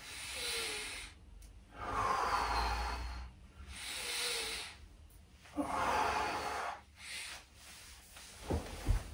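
A man breathing deeply and audibly through a floor exercise: slow breaths in and out, about two full breaths, with the out-breaths the louder. A few soft knocks of his body shifting on the floor come near the end.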